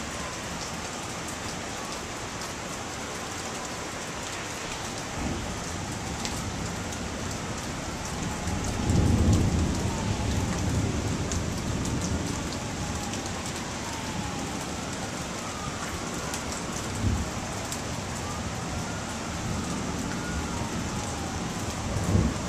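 Steady rain during a thunderstorm, with a low rumble of thunder about nine seconds in that lasts a couple of seconds. A few brief low thumps come and go.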